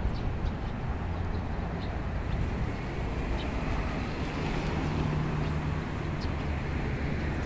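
Steady traffic noise from an elevated road, with a vehicle's low engine drone joining about four seconds in. Faint short bird chirps sound over it.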